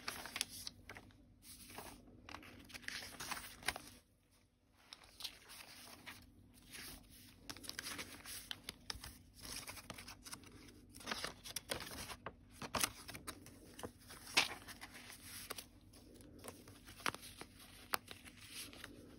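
Paper and card rustling and crinkling as the pages of a handmade paper journal are turned and a card is handled, with irregular soft flaps and ticks and a brief lull about four seconds in.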